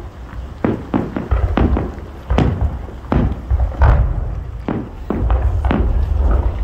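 Firework shells bursting overhead in quick succession, a sharp bang roughly every half second, over a continuous low rumble.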